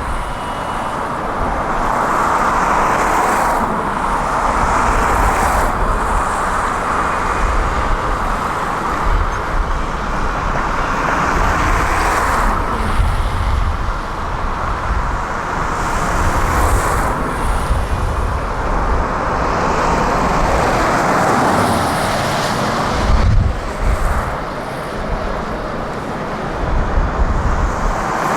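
Heavy diesel construction machinery running, excavator or truck engines swelling and easing in turn as they work, over a continuous engine rumble.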